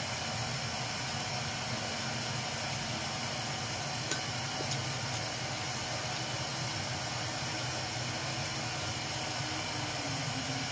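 Steady background hiss with a faint low hum, and two faint clicks about four seconds in.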